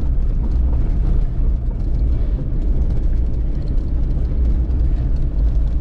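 A car on the move: steady low rumble of engine and tyre noise, with no change in pace.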